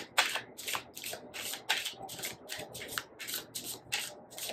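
A deck of tarot cards being shuffled by hand: a steady run of crisp card swishes, about three a second.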